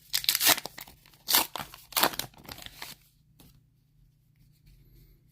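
A foil trading-card booster pack being torn open, its wrapper crinkling, in several quick rips over the first two seconds or so, then a few faint rustles.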